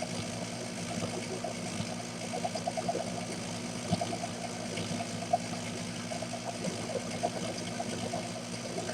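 Mini metal lathe running with the leadscrew power feed engaged, turning down a hexagonal head: a steady motor and gear hum with a faint rattle and a few light clicks.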